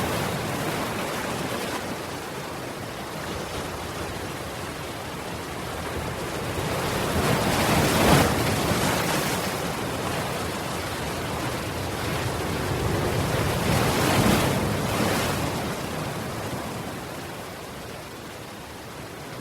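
Ocean surf: a steady wash of waves on the shore, with two bigger waves breaking about eight and fourteen seconds in, then a gentler wash near the end.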